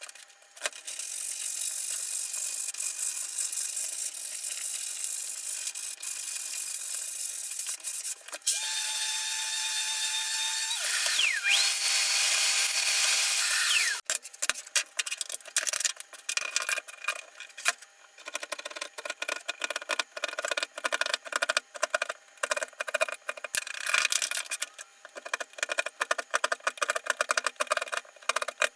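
Power tools at work on plywood: an electric tool motor spins up to a steady whine about a third of the way in and winds back down. A long stretch of rapid rattling, scraping strokes follows.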